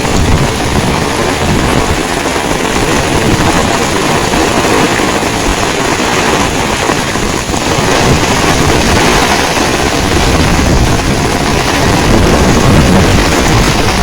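Heavy rain pouring steadily, with strong wind buffeting the microphone in a low rumble.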